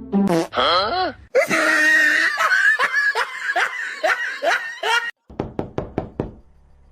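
A person laughing hard in a long run of repeated bursts, ending in a few quick short ones before it fades.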